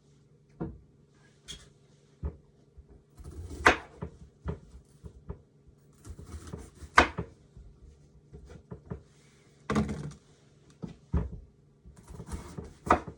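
Irregular knocks and clunks of kitchen work: about a dozen sharp strikes, two of them much louder, with softer rustling handling in between.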